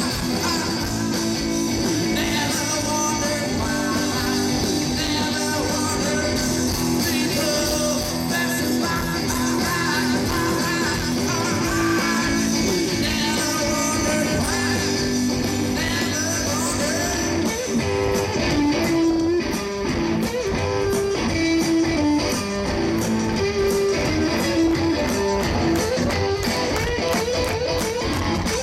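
A live garage-rock duo plays electric guitar and drum kit, heard through a festival PA from the audience. About two-thirds of the way through, the playing thins out to a sparser guitar riff over the drums.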